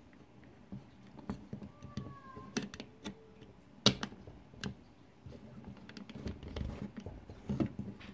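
Irregular clicks and knocks of small objects being handled, the sharpest a little under four seconds in, with a brief faint squeak about two seconds in.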